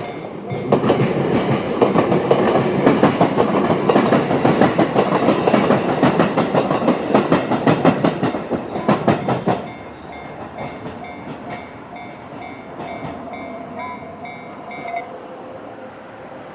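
A JR 211-series electric train passes over the level crossing, its wheels clacking rapidly over the rail joints for about nine seconds. The crossing's JR-standard electronic warning bell rings throughout as a steady, evenly repeating ding, and it stops a little before the end as the crossing clears.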